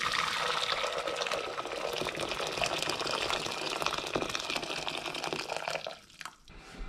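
Water pouring from an electric kettle into a stainless steel pot, a steady splashing stream that stops near the end.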